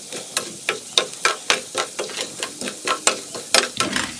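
Roasted gram sizzling in hot oil inside a perforated steel ladle, while a spatula stirs it, scraping and tapping against the ladle in sharp, irregular clicks, a few a second.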